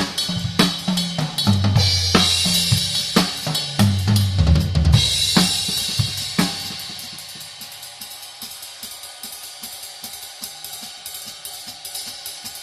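Tama Starclassic Walnut/Birch drum kit played: tom fills with bass drum and cymbal crashes in the first five seconds or so, then a quieter run of quick, light cymbal strokes over ringing cymbal wash.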